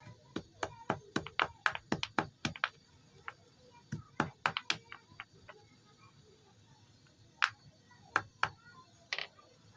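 Chalk sticks being crushed, crunching and snapping in sharp cracks: a quick run in the first few seconds, another cluster about four seconds in, then a few single cracks near the end.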